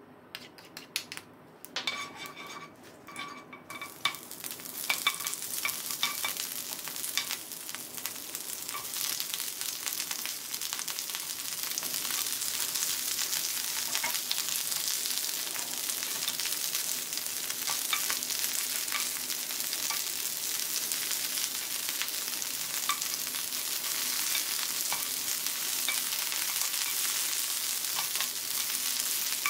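Napa cabbage and green onion sizzling in sesame oil in a hot frying pan while being stirred with a spatula. A few clicks and light clinks come first; about four seconds in the sizzle swells and then holds steady, with small scraping strokes from the stirring.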